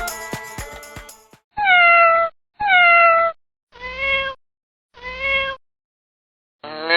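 A domestic cat meowing four times, each call under a second: the first two louder and falling in pitch, the last two quieter and lower. Music fades out just before the first meow.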